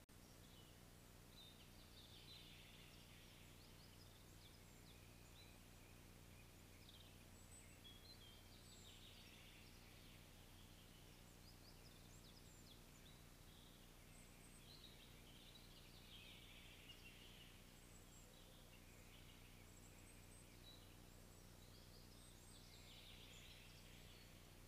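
A songbird singing faintly, the same short phrase about four times at intervals of roughly six seconds, with scattered short high calls between.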